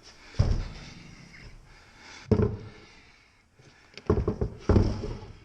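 Heavy thuds and clunks, four in a few seconds, as a 3-ton arbor press is carried and set down.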